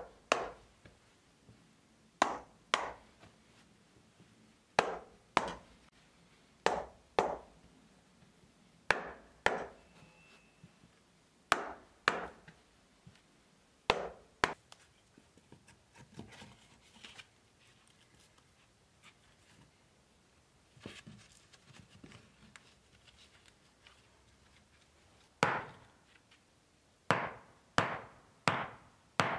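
A hammer striking end-grain pine wood-brick floor blocks to set them in place, in pairs of sharp knocks about every two seconds. After a pause of several seconds in the middle, a quicker run of blows comes near the end.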